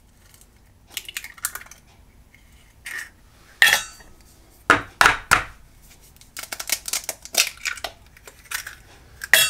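Raw eggs being cracked into small ceramic ramekins: sharp taps and cracks of eggshell and light clinks against porcelain and a steel bowl, some scattered and a quicker run of clicks near the end.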